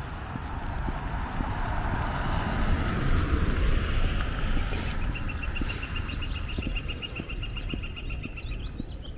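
A car passing on the street, its noise swelling to a peak about three to four seconds in and then fading away, over steady walking footsteps. A rapid high-pitched ticking runs through the second half.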